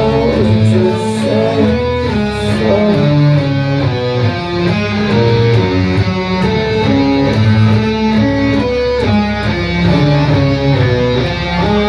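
Live rock band playing an instrumental passage with no singing: guitars and bass guitar played loud through the PA.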